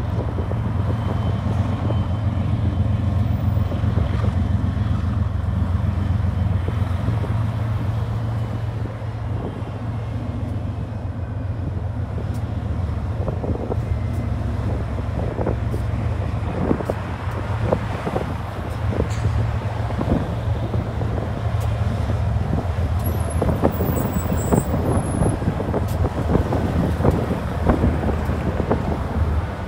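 Several BNSF diesel-electric freight locomotives passing at speed, their engines making a steady low drone, with clicks and rattles growing more frequent through the second half.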